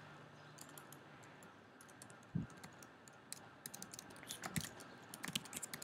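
Faint typing on a computer keyboard: scattered keystrokes at first, then a quicker run of clicks in the second half.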